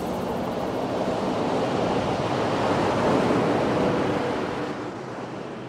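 Ocean surf washing in, one swell rising to its peak about three seconds in, then fading away.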